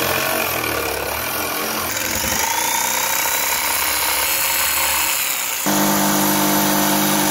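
Jigsaw running and cutting through a cedar board along a traced outline, the motor running steadily with the blade rasping through the wood. The sound changes abruptly about two seconds in and again near six seconds, after which the motor's steady hum stands out more clearly.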